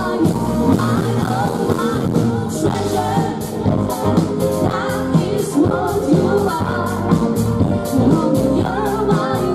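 Live rock band playing a song: two women singing into microphones over electric guitar and drums with a steady cymbal beat.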